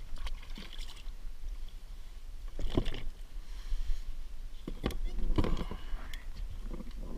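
Handling noise on a plastic fishing kayak: a few scattered knocks and clunks of gear and a freshly caught fish against the hull, over a steady low rumble.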